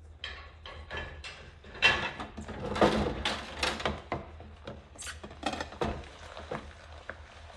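White ceramic plates being washed by hand in a soapy stainless-steel sink: a run of short scrubbing strokes, with sharp knocks of plate on plate or sink about two and three seconds in.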